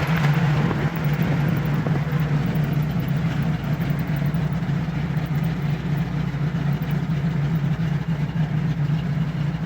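1965 Ford Mustang running at a steady cruise: a constant low engine and exhaust drone under an even haze of road noise.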